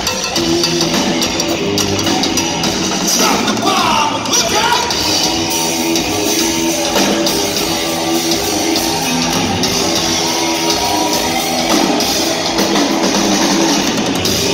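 Hard rock band playing live and loud in a theatre hall, with a cowbell beaten along with the drums and guitars.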